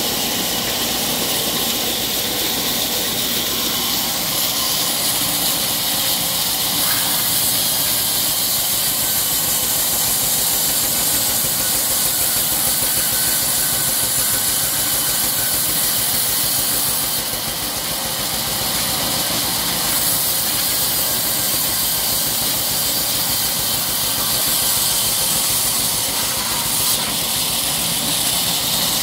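Large vertical bandsaw sawing lengthwise through a log: a steady, loud machine noise with a strong high hiss from the blade in the wood. The loudness dips briefly a little past the middle.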